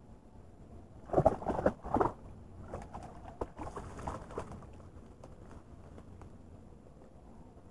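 A small hooked fish splashing at the water's surface as it is pulled in on the line, together with dry bamboo leaves crunching underfoot on the bank. The loudest burst comes about a second in, followed by fainter scattered splashes and crackles that die away after about four seconds.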